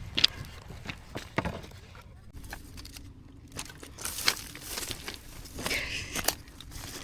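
Irregular crunching and crackling of footsteps on dry forest floor, with twigs and dry leaves rustling and snapping as firewood is gathered.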